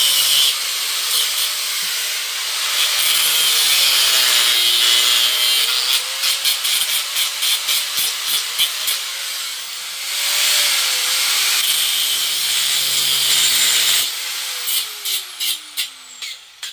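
Angle grinder with a cutting disc cutting through the protruding ends of steel bolts: a loud, harsh grinding with the motor's whine dipping under load, and stretches of rapid stuttering contact as the disc bites. Near the end the grinder is switched off and its whine falls away as the disc winds down.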